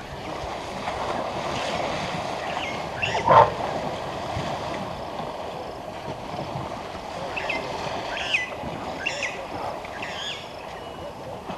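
Water sloshing and splashing as elephants swim in a waterhole dam, with a short, louder call that falls in pitch about three seconds in. Several short, high bird chirps come in the second half.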